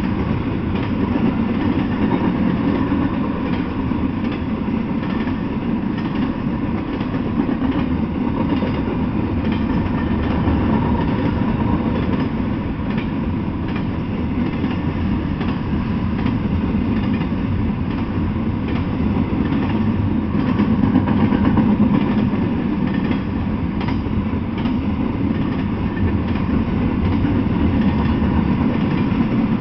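Double-stack container freight train of well cars rolling past: a steady, continuous rumble of wheels on rail, with light clicks scattered through it.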